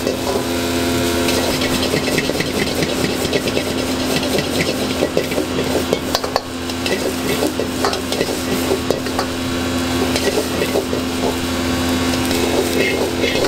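Shrimp egg fried rice being stir-fried in a wok: the metal ladle scrapes and clacks against the wok as the rice is tossed and sizzles, over a steady hum.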